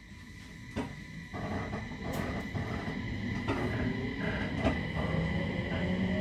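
A JR East 701 series electric train heard from inside the car as it starts off from a standstill. A steady high hum and a few clunks are followed, from about two-thirds of the way in, by the drive whine rising in pitch as the train gathers speed.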